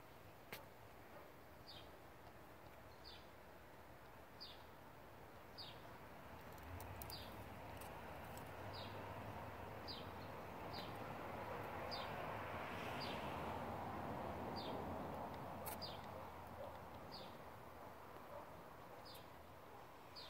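A bird repeating one short, high, falling call about once a second, over faint outdoor ambience. A low rushing noise swells up in the middle and fades again.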